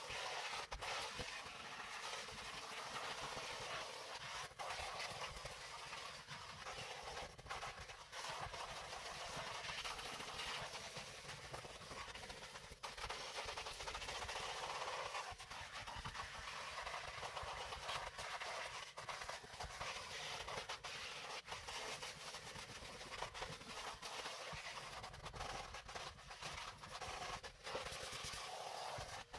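Vacuum cleaner sucking through a ribbed hose and crevice nozzle worked over car floor carpet. It makes a steady hiss broken by short clicks and scrapes as the nozzle moves.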